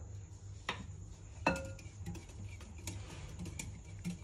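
Wire whisk clinking against a glass bowl a few times, irregularly, while stirring a thin liquid; the loudest clink, about one and a half seconds in, leaves a short ring. A low steady hum runs underneath.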